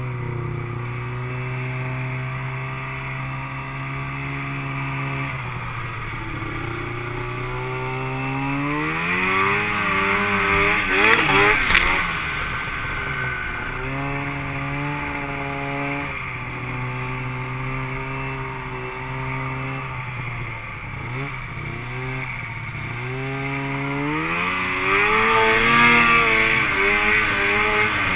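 2006 Arctic Cat Crossfire 700 snowmobile's two-stroke twin engine running steadily, then revving up in pitch twice, about ten seconds in and again near the end. A single sharp knock sounds at the first peak.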